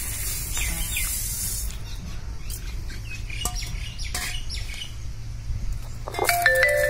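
Coriander seeds pouring from a steel bowl onto a stone grinding slab, a brief hissing rattle in the first second or two, with birds chirping and a few clicks from the stone. Music with held notes comes in near the end.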